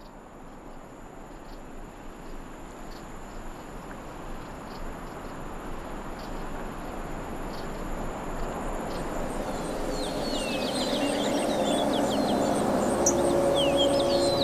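Outdoor ambience fading in: a rising hiss with a steady high whine, then small birds twittering from about ten seconds in, and a sustained low musical tone entering near the end.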